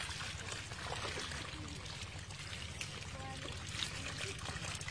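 Muddy water pouring steadily over the rim of a woven bamboo fish-trap basket, carrying small fish in with it.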